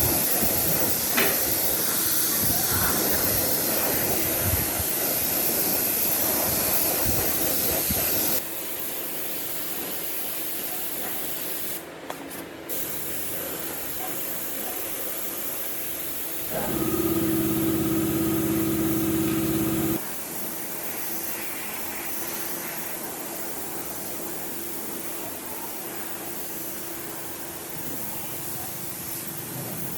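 A steady hissing spray, as from a shop spray gun or air nozzle. About eight seconds in it cuts abruptly to a quieter hiss. Past the middle, a steady-pitched machine hum sounds for about three seconds and then stops abruptly.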